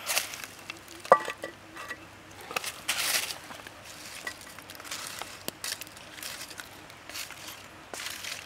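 A metal frying pan is set down on a brick stove with a ringing clank about a second in. After that comes light, irregular crackling and sizzling as oil heats in the pan over glowing charcoal.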